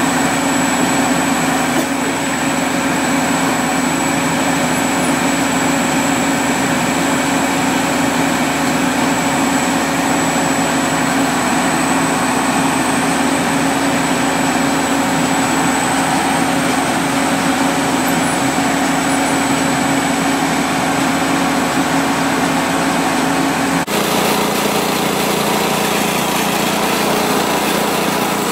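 Horizontal directional drilling rig's engine running steadily under work, with a steady high whine over a low drone. About 24 s in the sound cuts abruptly to a slightly different steady engine sound.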